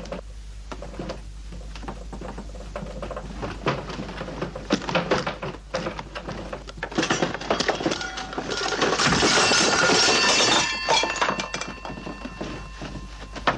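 Knocks, clunks and clinks of tools and telephone parts being handled, building to a louder clattering stretch with ringing metallic tones in the middle before settling back to scattered knocks.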